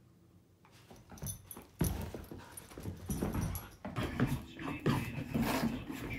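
Dogs making irregular vocal noises during rough play, getting louder and busier in the second half.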